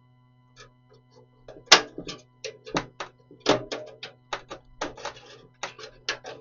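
Sharp clicks and taps of metal and plastic PC-case parts being handled and pressed into place, starting about a second and a half in and coming two or three a second, over a steady low hum.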